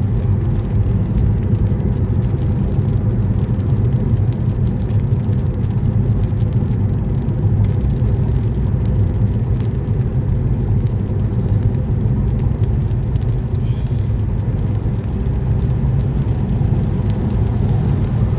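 Steady road and engine noise of a car driving at highway speed, heard as a constant low rumble from inside the cabin.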